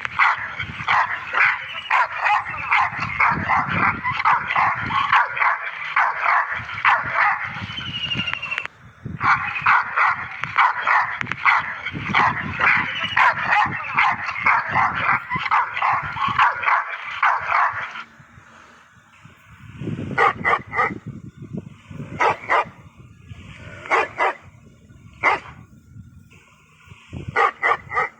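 Dogs barking in rapid, continuous volleys, with a brief break just before 9 s. After about 18 s the barks thin out to single, separate barks with short pauses between them.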